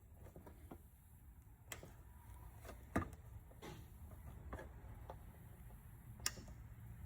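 Redhorse portable hydraulic hose crimper being hand-pumped to close its dies on an AN hose-end collar: faint, irregular sharp clicks from the pump and tool, sharpest about three seconds in and again near the end, over a low steady hum.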